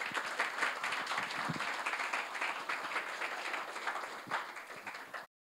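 Audience applauding, a dense patter of many people clapping, cut off abruptly near the end.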